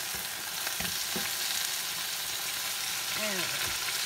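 Ground-pork burger patties sizzling steadily as they fry in butter in a skillet.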